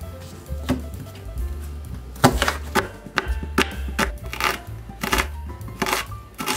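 Chef's knife chopping an onion finely on a wooden cutting board: a dozen or so sharp, irregular knife strikes against the board, over background music.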